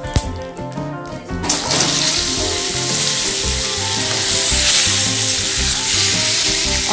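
Chopped green guava pieces dropped into hot oil with cumin seeds start to sizzle about a second and a half in, then fry with a steady sizzle as they are stirred with a spatula.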